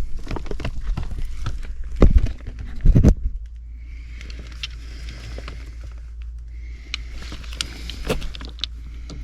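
Sheet-metal access panels being taken off an HVAC air handler: rattling knocks and clicks, with two heavy clunks about two and three seconds in, then lighter scattered taps and rustling.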